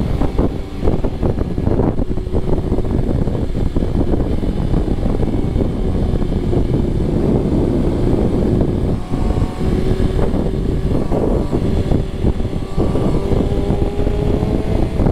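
Wind rushing over the microphone, with a BMW S1000RR's inline-four engine holding a steady drone underneath while cruising at highway speed.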